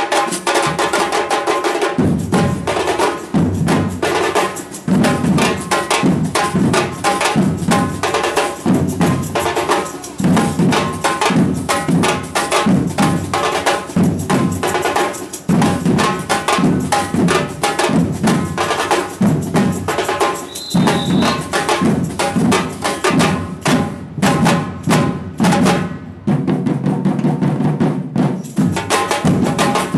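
Samba percussion band playing a fast, dense drum groove of many rhythmic strokes, with a short high tone about two-thirds of the way through.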